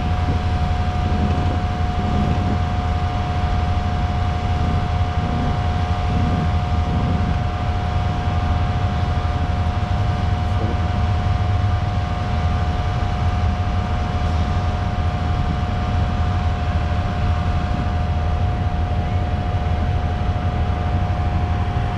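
Laser screed machine running steadily as it levels freshly poured concrete: a steady low engine drone with a constant high whine over it.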